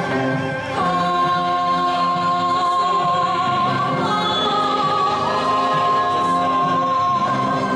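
Choir and band performing a Korean-Western crossover piece, with a high voice holding one long note from about a second in.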